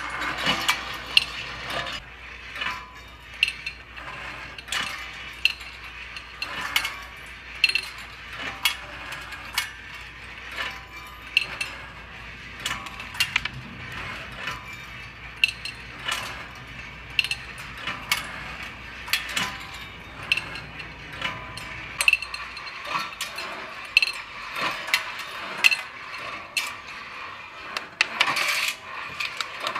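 Hand-cranked wire kinetic sculpture running: its chain, sprockets and ratcheting reel click steadily, and 1/4-inch chrome steel balls clink and rattle along stainless steel wire tracks, with a sharp tick about once a second.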